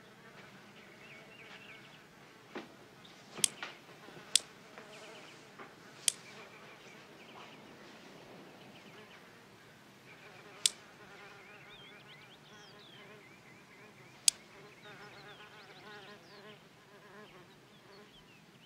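A housefly buzzing faintly in fits and starts, with about five sharp clicks spread through as wooden chopsticks snap shut on it and miss.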